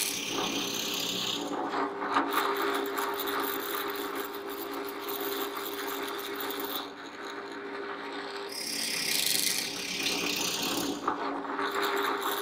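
Drill press running with a steady motor hum while its bit bores dowel holes into timber, the cutting noise coming in a few separate spells as the bit is fed in.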